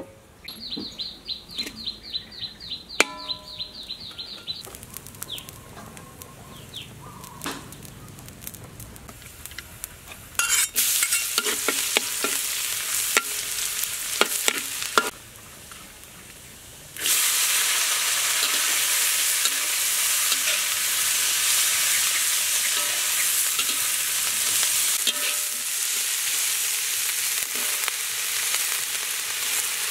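Food frying in hot oil in a wok while a metal spatula stirs and scrapes, giving clicks against the sizzle. The sizzle comes in loud a little past a third of the way through, drops briefly, then returns louder and holds steady as leafy greens fry. It is preceded in the first few seconds by a quick run of high chirps.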